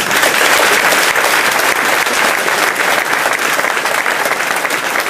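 Audience applauding, dense clapping that starts suddenly and holds steady throughout.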